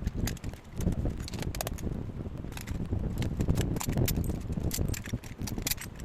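Small metal parts and tools being handled, clicking and clattering irregularly over low knocks and bumps.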